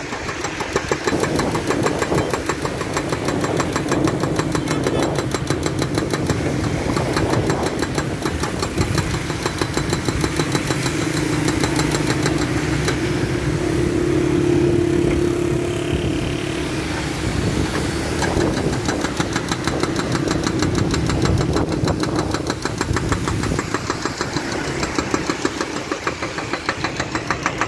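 Doosan wheeled excavator's hydraulic breaker hammering pavement in fast, even blows over the excavator's running diesel engine.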